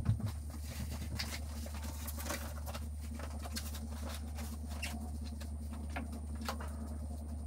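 Light handling noises, scattered clicks, scuffs and short scratchy rustles, from a spray bottle and rag being picked up and used on a car's engine bay, over a steady low hum. A soft thump comes right at the start.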